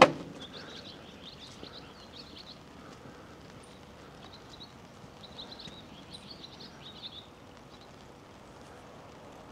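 A small songbird singing two bouts of rapid, high chirping notes, each lasting about two and a half seconds, over a faint steady outdoor hiss. A sharp knock right at the start is the loudest sound.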